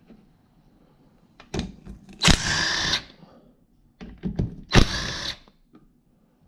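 Power driver spinning 8 mm bolts loose on a Kawasaki KX65 engine, in two short runs under a second each, with clicks and knocks of the tool and bolts in between.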